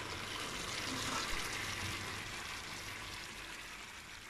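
Sliced potatoes and sausage sizzling in an uncovered frying pan, a steady hiss that slowly fades toward the end.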